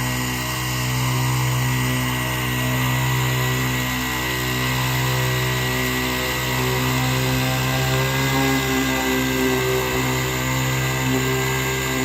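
A machine's engine running steadily at a constant pitch, with no pauses or strokes.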